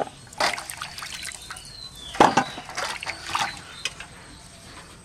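Hands sloshing and rubbing raw green mangoes in a steel bowl of water, with several short splashes and drips as the fruit is turned and lifted out.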